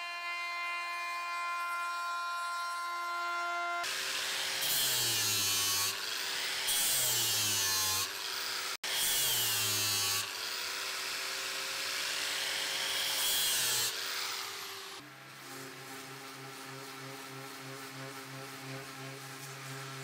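A trim router's steady high whine for about four seconds. Then an angle grinder with an abrasive disc runs against the edge of the wooden body, loud and rough, its pitch dipping and recovering under load. After about fifteen seconds a random orbital sander gives a quieter steady hum.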